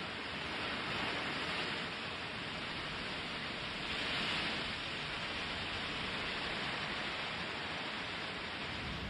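Steady hiss of skis sliding over snow, swelling slightly twice.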